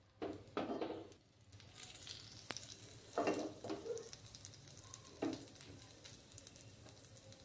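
Freshly added cooking oil sizzling faintly in a hot wok, with a few short bumps and scrapes as the wok is shifted and tilted on the gas burner to spread the oil.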